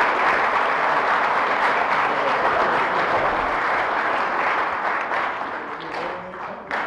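Banquet audience applauding as an award recipient comes up, the clapping fading near the end.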